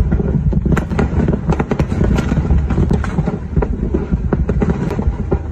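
Natural gas pipeline fire burning after an explosion: a loud low rumbling roar with many sharp cracks and pops running through it.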